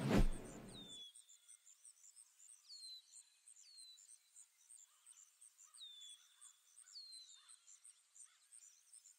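A brief loud rush of noise in the first second, then faint forest ambience: a bird gives a short, downward-sliding call four times, over an insect chirping steadily about two to three times a second.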